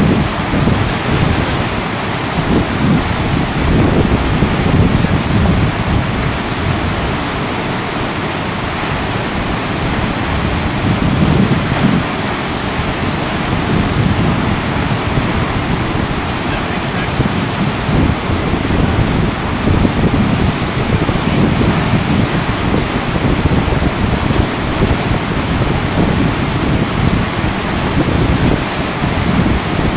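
Steady rushing of a large whitewater river rapid, the breaking water of a standing wave.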